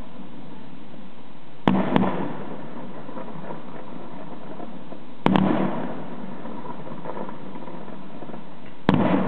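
Fireworks going off: a sharp double bang about two seconds in, another bang about five seconds in and one near the end, each followed by a fading crackle.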